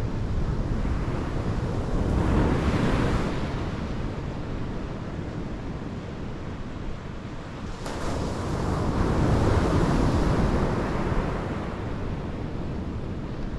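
Surf breaking and washing up a sandy beach, with two waves swelling louder, one about two seconds in and a longer one from about eight seconds in, over a low rumble of wind on the microphone.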